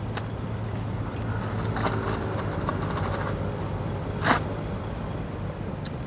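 An engine running steadily with a low, even hum, and a single sharp knock a little over four seconds in.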